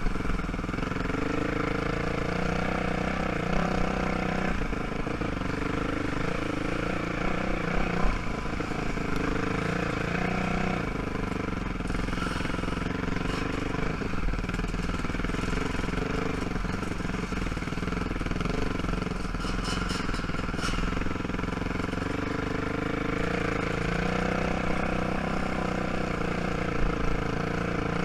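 ATV engine running at low trail speed, its pitch rising and falling with the throttle. A short run of clicks is heard about twenty seconds in.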